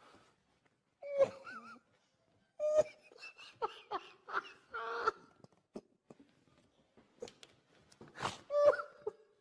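A man laughing helplessly in several high-pitched, strained bursts, trying to hold it in, with short silences between the fits.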